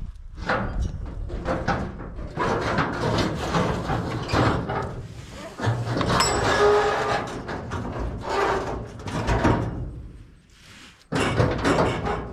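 Ratchet tie-down strap being handled: nylon webbing pulled and rubbed through the hands and around a trailer wheel, with the metal ratchet buckle rattling and scraping. It comes in uneven spells, with a short lull near the end before it starts again.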